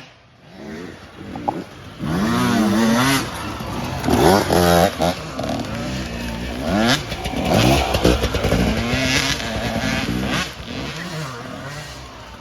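A small engine revving up and down over and over, its pitch rising and falling in quick swings.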